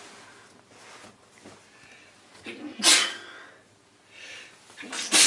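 A person sneezing: breaths build to a loud sneeze about three seconds in, then more breaths and a second sneeze near the end.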